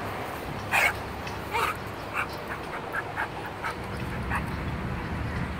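A dog giving two sharp yips about a second apart, then a quick run of short, high-pitched whines and squeaks for a few seconds, as two dogs meet nose to nose.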